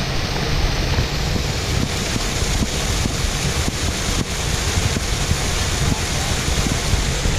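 Steady rush of a waterfall pouring into a pool, with wind buffeting the microphone.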